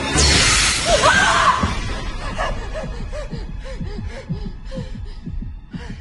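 Horror film sound design: a sudden loud crashing stinger hit that rings on for about two seconds, then a run of low wavering, warbling tones that slowly fade.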